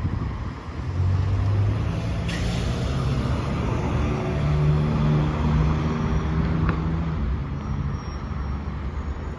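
New Flyer XDE60 diesel-electric hybrid articulated bus running, its low engine and drive drone shifting in pitch, with a short sharp hiss about two seconds in and a faint click near the end.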